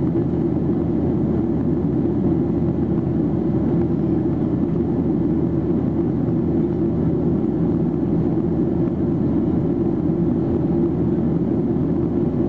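Steady cabin roar inside a Boeing 737-800 in flight: its CFM56-7B turbofan engines and the rush of air along the fuselage. The noise is a deep, even rumble with no change in level.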